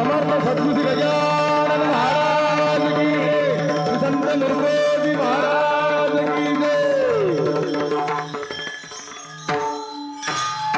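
Instrumental devotional bhajan music: a melodic line with gliding notes over a steady drone, with tabla. About eight seconds in the music thins out, followed by a few sharp percussion strokes near the end.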